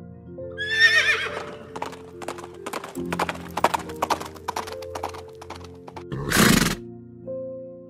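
Horse whinnying about a second in, a wavering call that falls in pitch, then hooves clip-clopping in a run of sharp knocks, and a loud short snort near the end, over soft background music.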